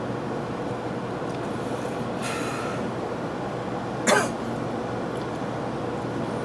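Steady running noise of an 800 series Shinkansen at speed, heard inside the passenger car. A single short cough stands out about four seconds in.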